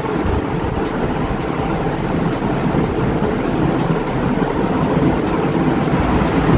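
A loud, steady rushing noise with faint scattered ticks over it.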